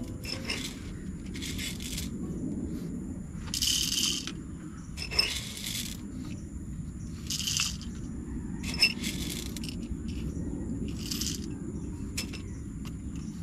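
Coffee beans rattling as they are scooped from a metal coffee canister into the hopper of a hand-crank coffee grinder: a string of short rattles a second or two apart, over a steady low rumble.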